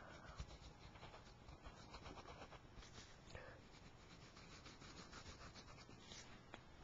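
Faint scratching of a pencil drawing lines on paper.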